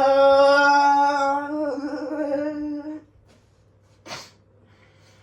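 A person humming one long, loud note that wavers in pitch before stopping about three seconds in, followed about a second later by a single sharp click.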